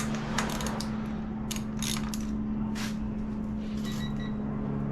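Socket ratchet clicking in short, irregular runs as it tightens a motorcycle's cylinder head bolts, over a steady low hum.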